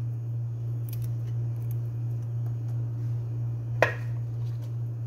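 A steady low hum, with faint handling clicks and one sharp tap about four seconds in as a hand reaches into a plastic salad spinner with arugula leaves.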